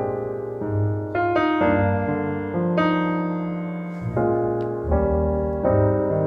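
Background music: slow, gentle piano playing sustained chords, a new chord struck every second or so and left to ring.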